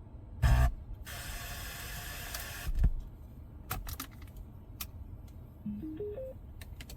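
A radio being handled and tuned: a thump, then a second or two of static hiss, another thump and a few clicks, and near the end a short run of four tones stepping upward in pitch.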